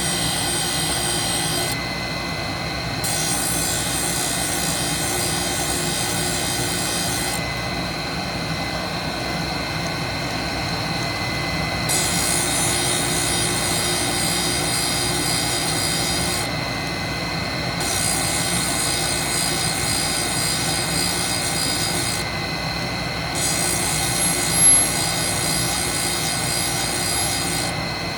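Sharpening grinder running steadily with a constant whine while face-grinding the teeth of stack cutters, a high grinding hiss coming and going every few seconds as the wheel works each tooth face. One short sharp click near the end.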